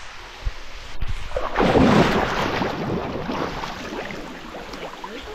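Water splashing and churning in a cenote as someone gets into the water: a splash that swells about a second and a half in, then settles into lapping and dripping.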